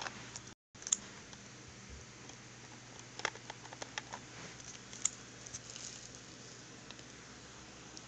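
Light clicks and taps of small plastic toy figures being handled and moved, over a faint steady hum. The sound cuts out briefly just over half a second in.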